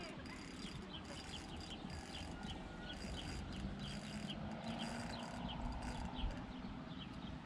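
Insects chirping steadily in a repeating pattern of short high chirps, about two a second, over a low outdoor rumble.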